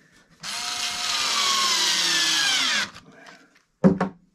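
Wenn electric screwdriver driving a screw into the wooden drawer, its motor whine running about two and a half seconds with the pitch falling steadily. A short sharp sound follows about a second after it stops.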